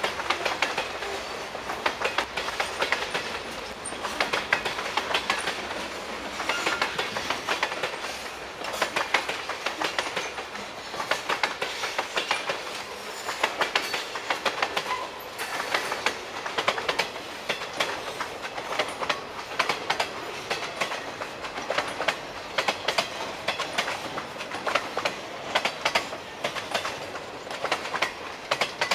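Freight train of covered hoppers and boxcars rolling past, its steel wheels clicking and clanking steadily over the rail joints.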